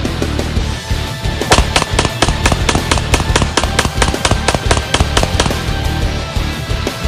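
Background rock music with a fast, steady drumbeat of about four hits a second.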